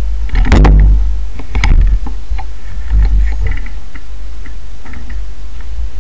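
The tail of an electronic music track fades out in the first second. Then wind buffets an action-camera microphone with a steady low rumble, over the hiss of rolling on a gravel path and scattered light ticks.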